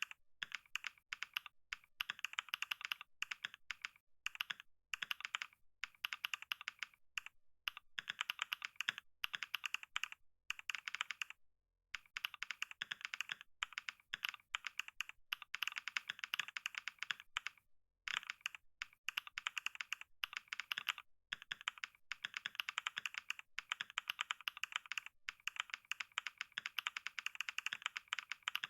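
Computer keyboard typed on fast and continuously during a typing-speed test, at roughly 55–65 words per minute: a rapid, unbroken run of key clicks with a few brief pauses.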